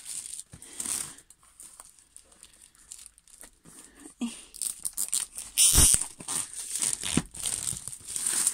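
Clear plastic shrink-wrap being torn and peeled off a cardboard box: scattered crinkles and crackles, sparse at first, then denser and louder from about halfway, with the loudest crackle about two-thirds of the way in.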